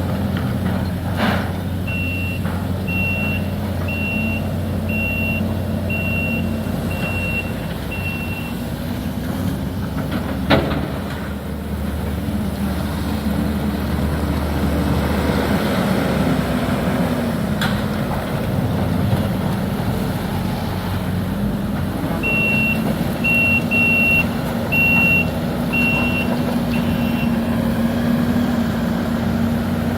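Heavy demolition machinery running steadily, with a backup alarm beeping about once a second for several seconds, twice: near the start and again about two-thirds of the way through. A single sharp bang about ten seconds in.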